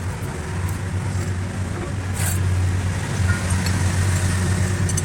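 An engine running steadily at idle, with a short hissing sound about two seconds in.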